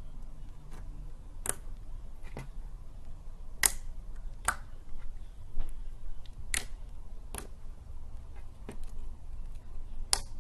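Slime being squeezed and worked by hand, giving sharp clicking pops at irregular intervals, about seven clear ones, over a low steady hum.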